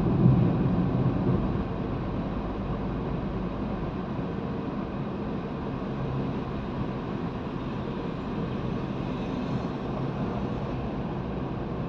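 Steady road and engine noise heard inside a moving car's cabin. A louder low rumble in the first second or so eases off to an even level.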